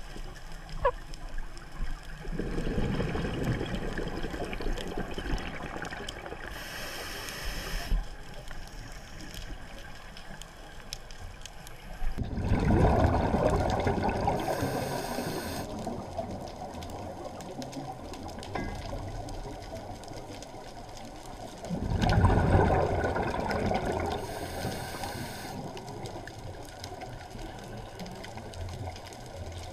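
Scuba regulator breathing heard underwater: three exhalations about ten seconds apart, each a burst of rumbling bubbles that fades over a few seconds, with short hisses from the regulator in between.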